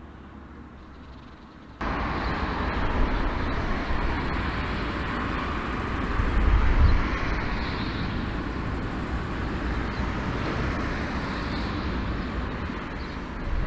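Jet engine noise from a taxiing four-engine Airbus A340, recorded at the airport as a steady rushing roar with deep rumble. It starts abruptly about two seconds in, after a faint low hum.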